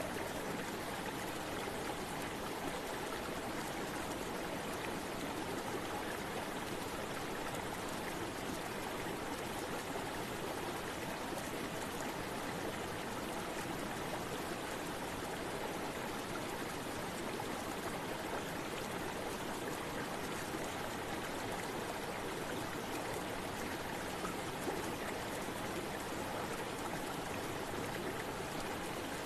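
Flowing river water running steadily, an even rushing noise with no breaks.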